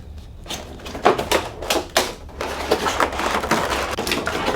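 Irregular clicks and light knocks of a plastic toy figure being handled and set about, starting about half a second in.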